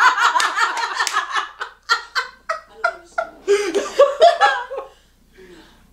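A small group of people laughing together, loudest at first, then in shorter bursts that die away about five seconds in.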